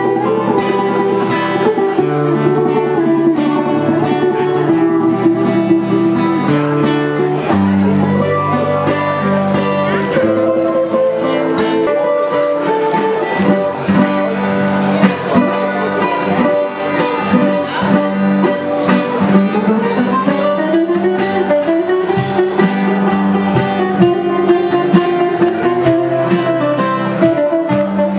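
Greek bouzouki playing a lively plucked melody over acoustic-electric guitar accompaniment, a live instrumental duo heard through the stage sound system.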